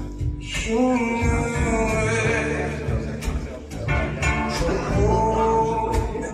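Music: a man singing long held notes over guitar accompaniment.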